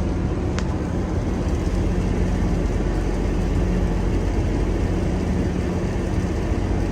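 A steady, low engine drone, like a vehicle or machine idling at an even pitch, with a brief tick about half a second in.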